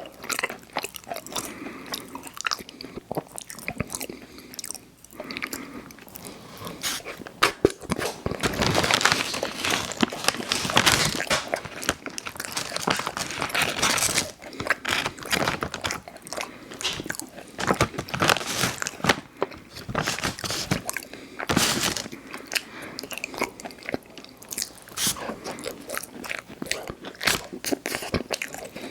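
Close-miked eating of Chips Ahoy! Chewy Hot Cocoa cookies: repeated bites and chewing with irregular crackly, crunchy clicks, busiest and loudest through the middle.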